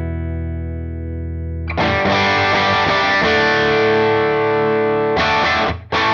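Electric guitar (Yamaha Pacifica) played through an engaged Gokko Salem Boost pedal pushing the amp. A chord rings out and fades, then a new chord is struck and held for a few seconds, then short chopped chords come near the end.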